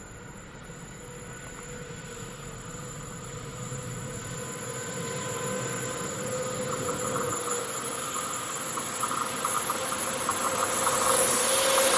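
DB Class 101 electric locomotive hauling a passenger train as it approaches, growing steadily louder, with a steady high whining tone over the running noise of the train.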